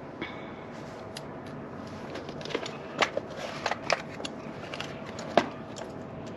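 Scattered light clicks and taps of hand tools and metal parts being handled while working on battery cable connections, the sharpest two about three seconds in and near the end, over a faint steady hum.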